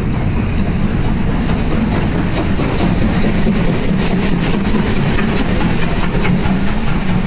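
Steam locomotive pulling out and passing close by: a loud, steady mix of escaping steam and low rumble, with a quick run of sharp exhaust beats, about four a second, through the middle.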